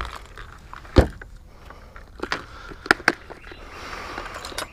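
Sharp knocks of a paddle and gear against a plastic kayak hull, the loudest about a second in, followed by a soft rustle of handled plastic gear near the end.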